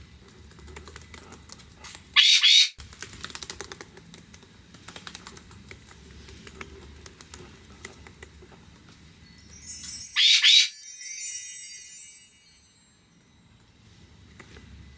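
Cockatiels' feet tapping and clicking as they walk, a scatter of light, irregular ticks. Two loud cockatiel calls cut in, one about two seconds in and one about ten seconds in.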